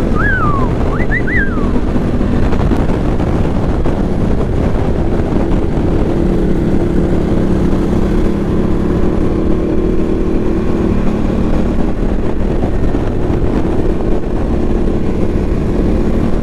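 Ducati Multistrada motorcycle cruising at about 100 km/h: steady engine hum under heavy wind rush on the microphone. A couple of short high chirps sound just after the start.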